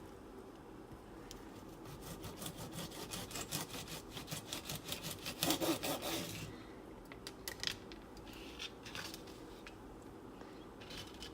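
Kitchen knife cutting through a bunch of green beans on a cutting board, a rapid run of about five strokes a second for several seconds, then a few scattered taps near the end.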